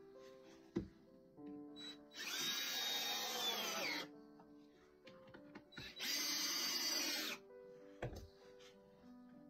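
A cordless driver running twice, each time for about a second and a half, driving screws into wooden boards, with a brief pitch shift as each screw seats. A couple of short wooden knocks as the pieces are handled, with background music under it all.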